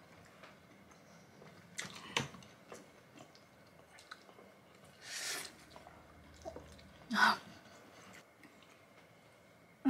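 Close-up chewing and eating sounds from prawns being eaten, with scattered wet smacks and clicks. A short hissing slurp comes about five seconds in, and a louder single sound about seven seconds in.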